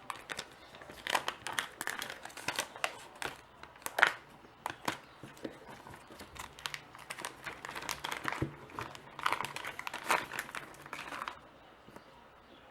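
Packaging crinkling and rustling as it is handled and opened, with irregular sharp crackles and a few louder snaps; it stops about a second before the end.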